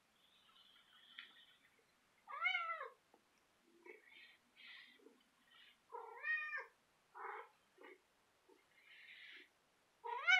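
Domestic tabby cat meowing three times, about four seconds apart, each call rising then falling in pitch, the last the loudest, while it play-attacks a socked foot. Softer scuffling sounds come in between.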